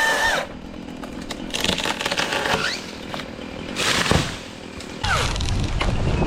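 Milwaukee battery-powered top-handle chainsaw being revved in short bursts, its motor whine rising and falling in pitch. About five seconds in it settles into a loud, steady run.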